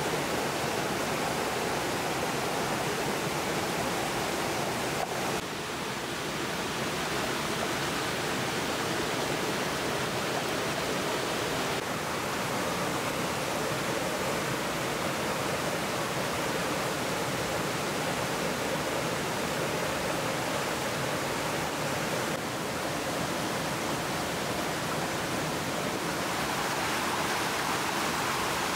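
Shallow rocky stream flowing, a steady rushing hiss of water that shifts slightly in tone a few times.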